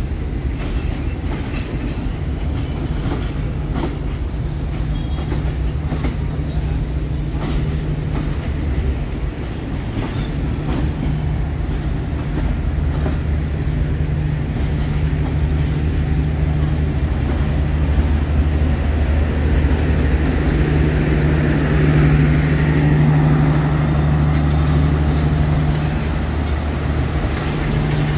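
Passenger train hauled by a D20E diesel locomotive rolling past, with a steady low engine drone and wheels clicking over the rail joints. It grows louder about twenty seconds in.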